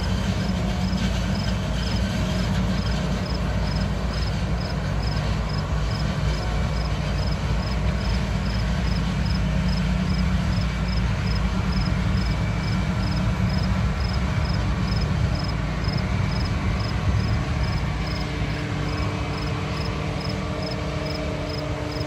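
Self-propelled forage harvester running in a cornfield, chopping whole corn plants for silage and blowing them into a wagon: a steady low machine drone. A high, even ticking about three times a second runs through it.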